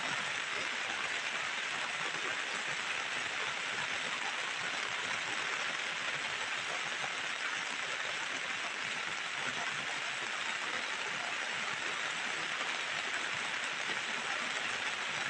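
Heavy rain falling steadily in an even hiss.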